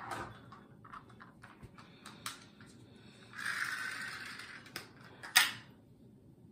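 Dental floss being pulled out of its plastic dispenser: a rasping hiss of about a second, among small plastic clicks, with the loudest sharp click near the end.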